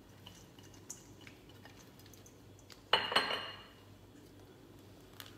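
A glass dish clinks once with a brief ring about three seconds in, among faint small taps and knocks of handling kitchenware.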